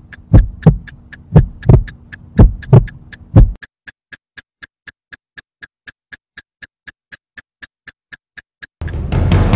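Horror soundtrack effects: a heartbeat of paired low thumps, about one beat a second, over quick even ticking at about four ticks a second. The heartbeat stops about three and a half seconds in and the ticking goes on alone. Near the end a loud noisy swell of scary music comes in.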